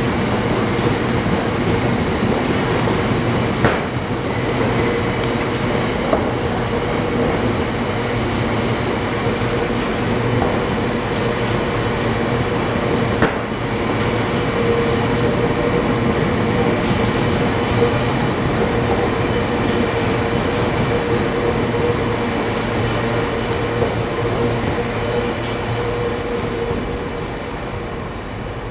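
A GB Railfreight freight train of covered coal hopper wagons rolling steadily past, a continuous rumble of wheels on rail with a steady tone running under it and a few sharp knocks. It fades away near the end as the last wagon goes by.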